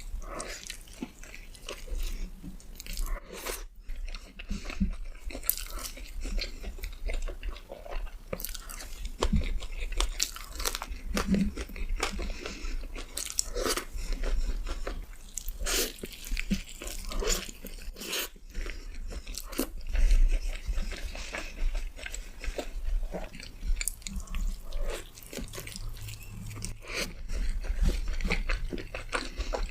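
Close-miked eating: repeated bites into crunchy food and chewing, with sharp irregular crunches.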